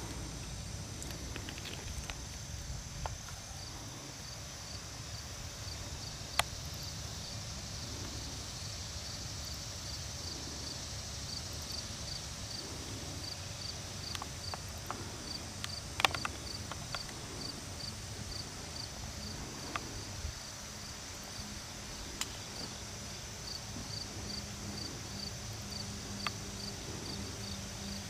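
Insects chirping in the woods: a high chirp repeating about three times a second over a steady high insect hiss. A few sharp clicks stand out, and a low steady hum comes in near the end.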